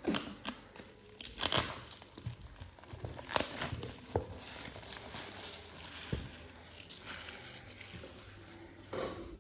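Plastic shrink wrap on a small product box being torn and peeled off, with irregular crinkling and crackling, loudest in a few sharp bursts in the first half.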